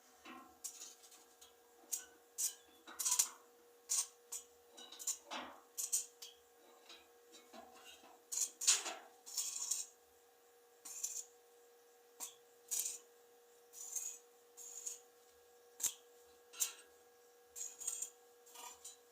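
Irregular light metallic clinks and taps, roughly one every second with some louder ones, from metal parts and hand tools being worked on, over a faint steady hum.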